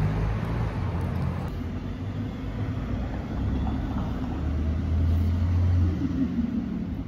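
City street traffic at an intersection: the low, steady hum of vehicle engines, growing louder about five seconds in.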